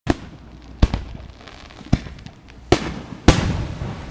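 Fireworks going off: five sharp bangs at uneven intervals, each trailing off in an echo, the last about three seconds in the loudest and longest.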